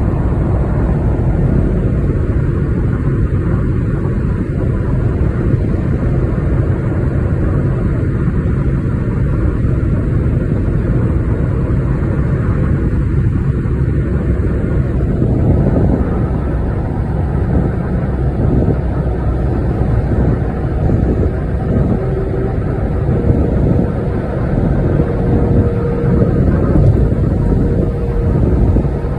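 Steady road noise from inside a car cruising at highway speed: a continuous low rumble with no breaks.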